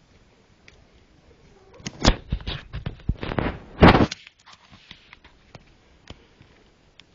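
A cluster of loud knocks and rustling lasting about two seconds, starting about two seconds in, with scattered light clicks before and after.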